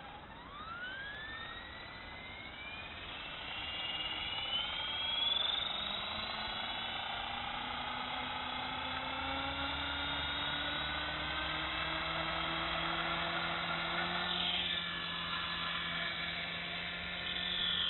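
Radio-controlled model helicopter spooling up: a high whine from its motor and rotor that rises in pitch over the first several seconds, then holds steady with a lower hum beneath as it lifts off and hovers.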